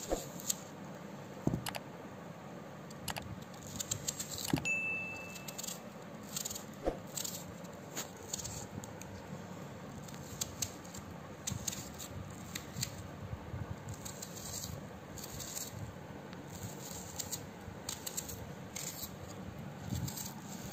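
Scattered light clicks and metallic clinks of a small knife cutting a red onion held in the hand over a steel plate.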